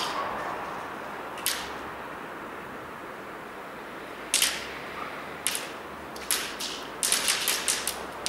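Airsoft guns firing: a few separate sharp snaps, then a rapid string of about seven in the last second or so.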